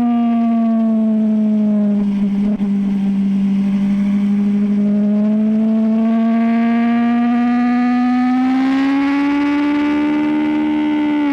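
BMW S1000RR's inline-four engine running at high revs under way. The pitch dips slightly about two seconds in, then climbs steadily for several seconds as the bike accelerates, and eases a little near the end.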